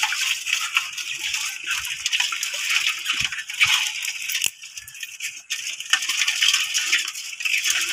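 Irregular small clicks and crackles of freshwater crab shells and claws being snapped and pulled apart by hand over an aluminium basin, quieter for a moment about halfway through.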